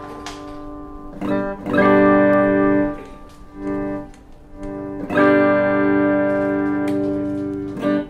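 PRS DGT electric guitar played through a Mesa Rectoverb 25 combo amp. Chords are struck about a second in and again about five seconds in, each left to ring for a couple of seconds, with a few softer single notes between and a quick strum near the end.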